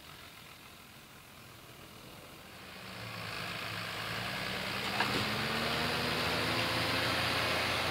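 Valtra T120 tractor's diesel engine working under load while pulling a seed drill. It is faint at first, then grows louder from about three seconds in as the tractor draws near, with its engine note climbing slightly. A single sharp click sounds about five seconds in.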